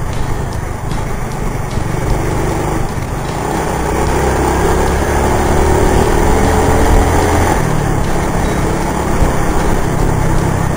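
Honda scooter's small engine running on the move, with wind and road noise. The engine note rises and grows louder about four seconds in, and drops back about seven and a half seconds in.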